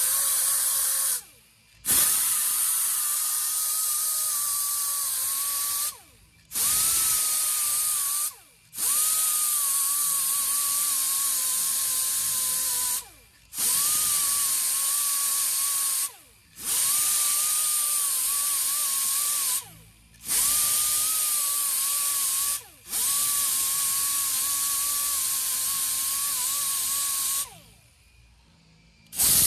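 A handheld power grinder spinning an abrasive disc against the curb-rashed rim of an alloy wheel, grinding out the damage. It runs with a steady high whine, stopping and restarting about seven times, with a longer pause near the end.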